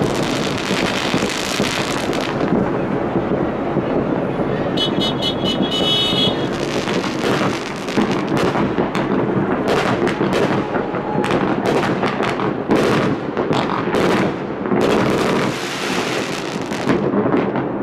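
Many New Year fireworks going off at once over a city: a continuous rumble of booms with sharp cracks and crackling bursts, the cracks coming thick and fast in the second half.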